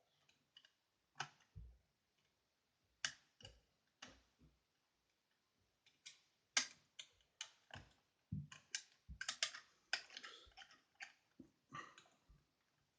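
Pre-lifter and wire pick working the levers of an ERA Fortress five-lever deadlock: faint, irregular metallic clicks and taps that bunch into a quick flurry about ten seconds in, as the levers are lifted in turn.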